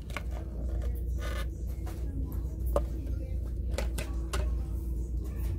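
Scattered light clicks and knocks of objects being handled, over a steady low hum.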